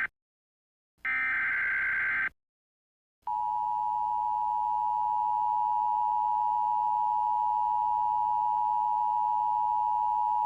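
Emergency Alert System tones: the tail of one burst of the digital header's warbling data tones and a second burst of about a second. After a short gap, the steady two-tone attention signal (853 and 960 Hz sounding together) starts about three seconds in and holds.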